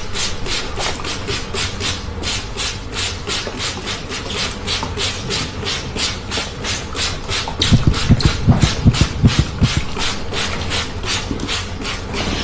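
Rhythmic rubbing or scraping strokes, about three or four a second, with a few louder low thuds in the middle.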